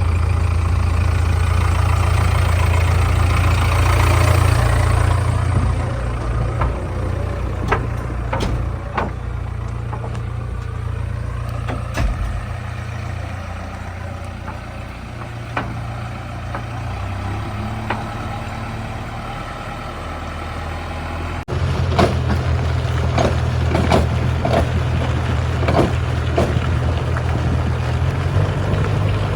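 Heavy diesel engines of a backhoe loader and tractor running steadily, with scattered clanks and knocks while mud is loaded. The engine sound changes abruptly about two-thirds of the way through.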